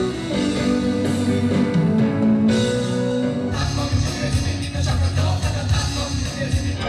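Rock music with electric guitar and drums, the arrangement growing fuller and heavier about three and a half seconds in.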